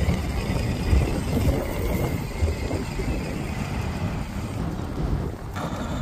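Child's battery-powered ride-on toy Jeep (Power Wheels) driving across asphalt: a steady, rough rumble of its plastic wheels and drive.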